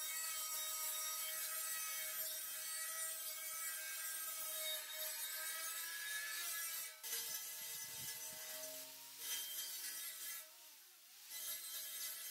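Handheld electric angle grinder with an abrasive disc grinding rust off a steel hoe blade: a steady motor whine under a bright grinding hiss, breaking off briefly near the end.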